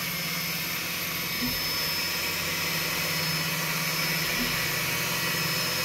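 Two Trees SK1 CoreXY 3D printer running a fast print: the loud, steady sound of its stepper motors, with a low hum and a thin high whine held throughout.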